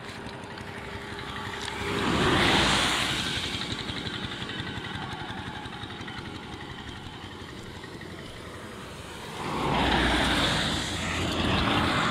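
Two vehicles passing on a wet street, the first about two seconds in and a longer pass near the end, over a steady wash of noise.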